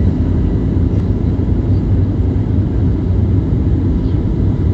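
Airliner engines and airflow during departure from the airport: a loud, steady low rumble with a faint steady whine above it.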